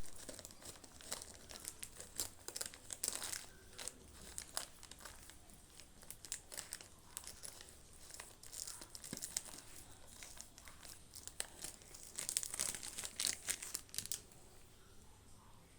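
A plastic wrapper crinkling and crackling in irregular bursts, busiest in the first few seconds and again in a cluster around twelve to fourteen seconds, then dying away.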